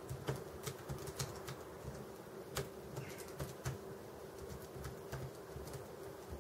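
Keys of a slim aluminium Snugg Bluetooth keyboard being typed on: soft, irregular key clicks, two to four a second, over a faint steady hum.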